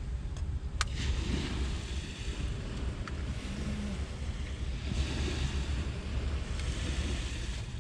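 Wind buffeting the microphone, a steady low rumble, over the wash of surf on the beach, with a couple of faint clicks.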